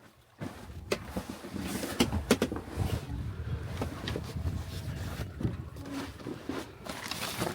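Irregular knocks, clunks and rustling of gear being handled, starting about half a second in.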